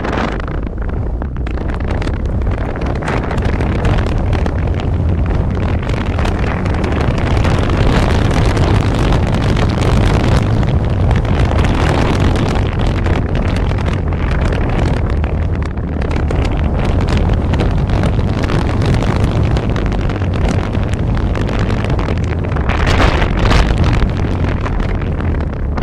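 Wind buffeting the microphone of a helmet-mounted camera as the skier runs downhill, mixed with skis sliding over snow. It is a steady rush, louder in the middle stretch and surging briefly near the end.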